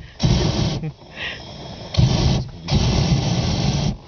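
Hot air balloon's propane burner firing in three short blasts, each starting and cutting off sharply, the last about a second long: the pilot adding heat on the landing approach.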